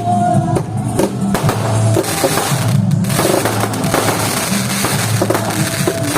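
Aerial fireworks bursting, with sharp bangs and a dense crackle over music with a drum beat.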